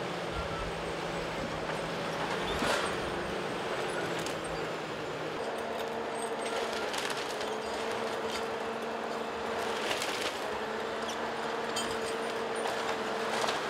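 Ponsse Elephant King forwarder running, its engine tone steady and changing about five seconds in, with a whine that swells and fades several times as the machine works and drives. A sharp knock sounds about three seconds in while the crane is handling logs.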